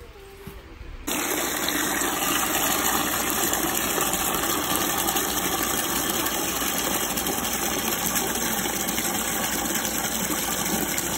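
Water jetting from a hose's spray nozzle into a plastic cattle water bucket as it is refilled. The spray starts suddenly about a second in and then runs steadily.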